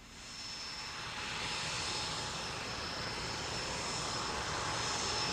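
Recorded airplane sound effect played back: aircraft engine noise that swells over the first two seconds and then holds steady, with a high whine running through the rush.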